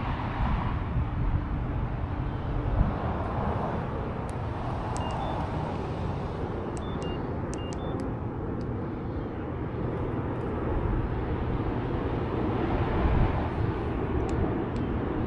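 Steady outdoor rumble and hiss, strongest in the low range and shifting in level, with a few faint short high beeps and ticks near the middle.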